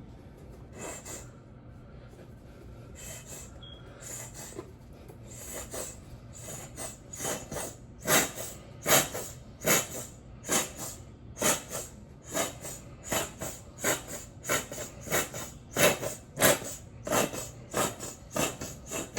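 Quick repeated swishing strokes as a child's hair is groomed for bed. They are sparse at first, then come steadily about one and a half to two times a second from about eight seconds in.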